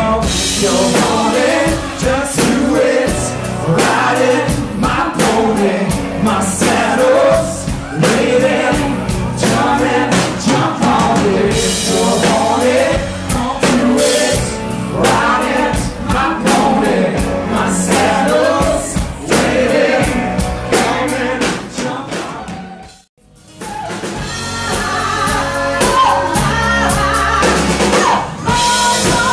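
Live band playing, with a man and a woman singing over drums and guitars. The sound drops out briefly about two-thirds of the way through, then the band and the singing pick up again.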